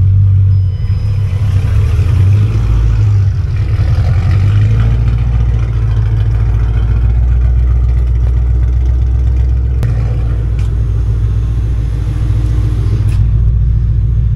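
Car engine running with a steady deep rumble, its low note shifting about five seconds in and again near ten seconds. A sharp click comes about ten seconds in.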